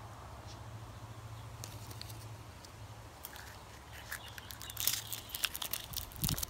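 Clear plastic wrapper crinkling, with light plastic clicks, as a sealed toy packet is pulled out of a plastic surprise-egg capsule; it starts about four seconds in, over a steady low hum.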